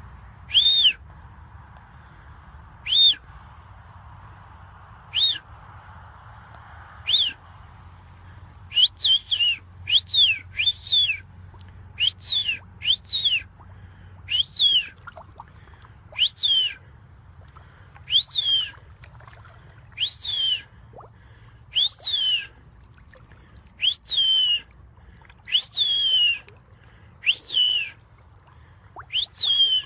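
A person whistling short, repeated notes to call fish, each note rising and then falling in pitch. The notes come about one every two seconds at first, then faster and often in pairs from about nine seconds in.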